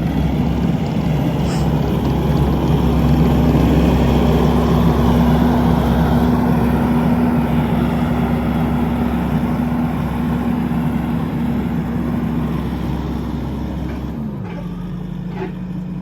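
Skid steer engine running steadily at high revs, then throttling down near the end, its pitch dropping.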